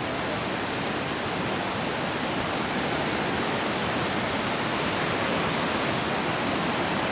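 Steady rush of white water from the Iguazú River's falls and rapids, an even, unbroken hiss with no change in level.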